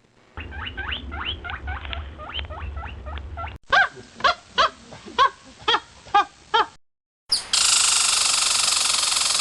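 Short animal calls repeated several times a second in two separately cut clips, the second clip louder and slower, followed by a steady hiss.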